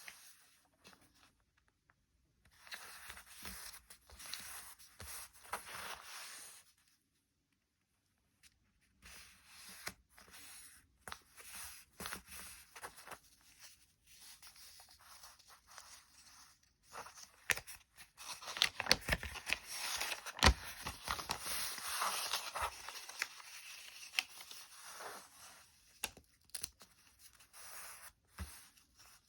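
Paper being folded and creased by hand in origami: rustling and crinkling with sharp taps and snaps as folds are pressed flat. There is a spell of near silence about seven seconds in, and the handling is busiest and loudest in the second half.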